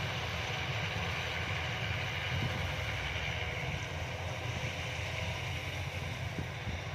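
Yanmar YH-850 rice combine harvester running steadily, its engine and threshing machinery making a continuous drone.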